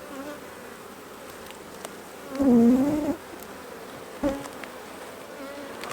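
Honeybees buzzing around an open hive, the colony a little upset by the inspection. About two and a half seconds in, a bee passes close by with a louder buzz that bends up and down in pitch, and another passes briefly a second or so later.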